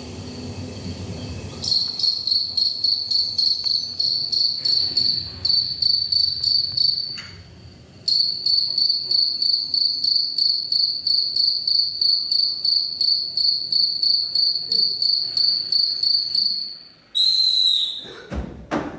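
Cricket chirping loudly in an even, pulsing trill of about four chirps a second, which breaks off for about a second midway and then resumes. Near the end comes a short high whistle-like tone that falls in pitch.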